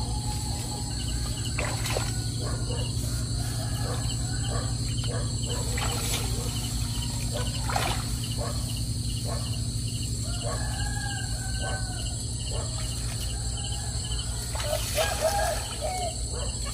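Rural outdoor ambience: a rooster crowing several times, with the brightest call near the end. Insects chirp in a steady, even series over a constant low rumble, and there are a few short knocks.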